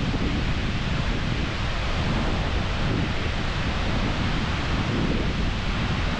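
Skógafoss waterfall's steady rush of falling water, with wind buffeting the microphone.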